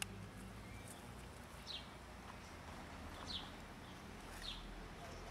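A bird calling three times in short, high, downward-sliding chirps over faint outdoor background hum, with a brief click at the very start.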